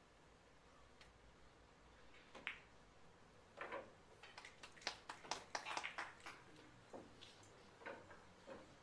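A pool cue strikes the cue ball about two and a half seconds in, and a ball knock follows about a second later. Then comes a quick run of sharp clicks of pool balls knocking together, with scattered clicks near the end, as the balls are gathered for the next rack.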